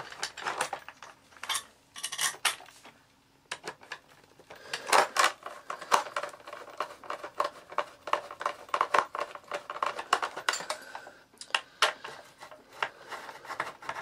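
Screwdriver and screws clicking, scraping and rattling against the plastic and metal of a Hoover Junior upright vacuum's base as it is put back together by hand. There are scattered clicks at first, then a dense run of quick clinks from about five seconds in.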